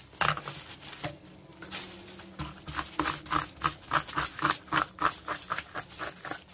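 Scales being scraped off a whole mullet: short rasping strokes, scattered at first, then coming about three a second in the second half.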